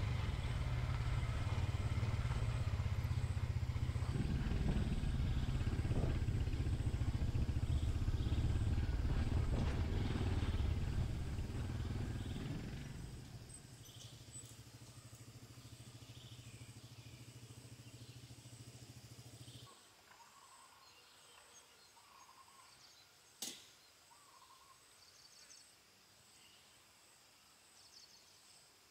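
Yamaha PG-1's single-cylinder four-stroke engine running under way and growing louder, then easing off to a steady idle, and switched off suddenly about two-thirds of the way in. After it stops, a few faint bird calls and a single sharp click.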